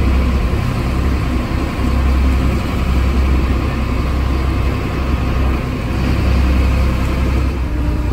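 Motorboat under way at speed: engine running and wake water rushing alongside, a loud, steady rumble with a rushing hiss over it.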